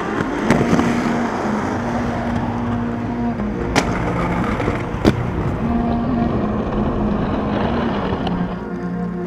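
Inline skate wheels rolling over rough concrete pavement, with a couple of sharp clacks from skates hitting ledges in grinds and landings.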